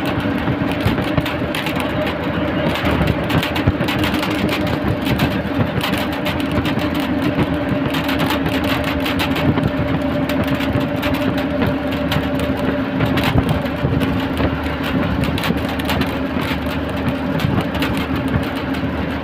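Inside a moving diesel passenger bus at speed: a steady engine drone and hum over road and wind rumble, with small rattles and clicks from the bus body.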